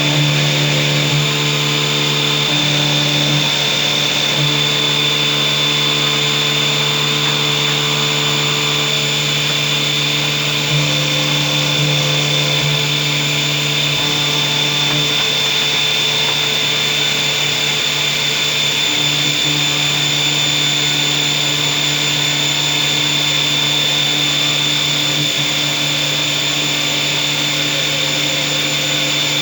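CNC machine running steadily: a constant motor hum with a high, steady whine and no break.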